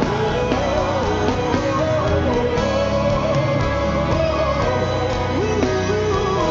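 Live worship band playing a slow gospel song between sung lines, a melodic lead line gliding and holding over a steady low accompaniment.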